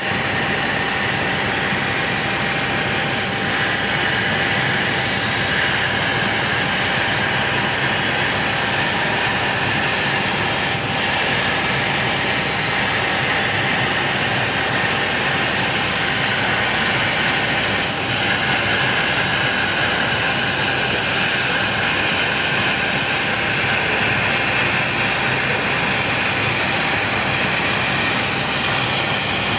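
Chinese laser cutting machine running: a steady rush of air and machinery noise with a thin constant whine, shifting slightly in tone about halfway through.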